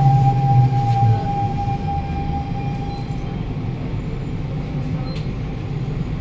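Siemens C651 metro train pulling into a station. Its traction motor hum and a thin high tone drop in pitch and fade over the first couple of seconds, leaving a steady rumble as the train slows on the platform.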